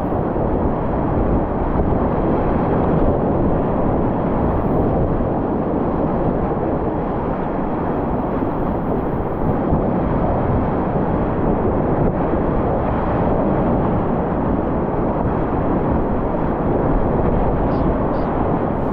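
Steady rush of whitewater with wind buffeting the microphone, a loud, even noise.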